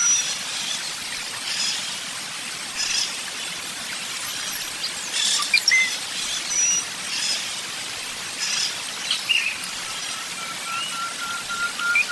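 Several wild birds chirping and calling in short, high notes, some sliding up or down in pitch. A fast, even series of pulsed notes at one steady pitch runs at the start and again near the end.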